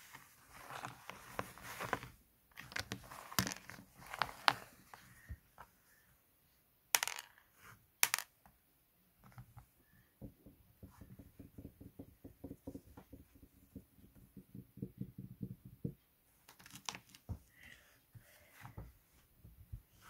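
Hands squeezing, crumbling and pressing kinetic sand: soft crunching and crackling, with two sharp clicks about a third of the way in and a fast run of small crackles through the second half.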